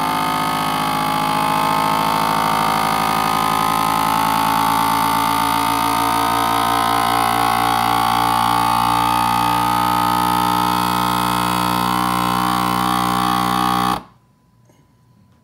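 FoodSaver vacuum sealer's pump running steadily, pulling the air out of a mason jar through the wide-mouth jar attachment, its tone drifting slightly. It cuts off suddenly about 14 seconds in as the jar reaches vacuum, followed by a faint click.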